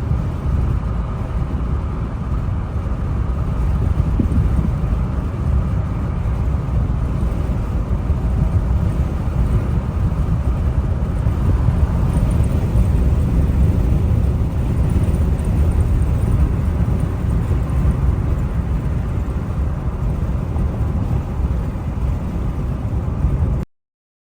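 Steady road and engine rumble inside a moving car, cutting off abruptly near the end.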